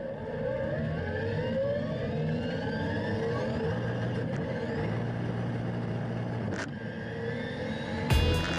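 Toyota Chaser JZX100's turbocharged 2JZ-GTE straight-six engine, heard from inside the cabin, revving up with pitch climbing through the first few seconds, then holding a steadier note. A single sharp click comes about six and a half seconds in.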